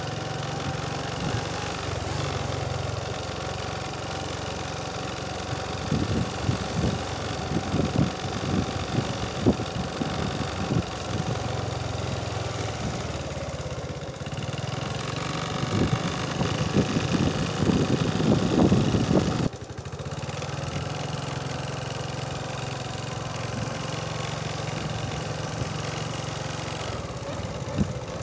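A small engine running steadily, with louder, rougher stretches about six to eleven seconds in and again from about sixteen seconds. These end in an abrupt break, after which the steady running goes on.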